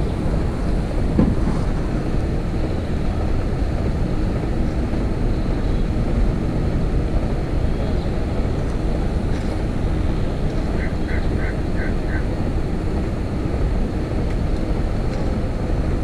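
Steady low rumble of wind on the microphone mixed with distant pond paddle aerators splashing the water. A quick run of five short, high chirps comes about eleven seconds in.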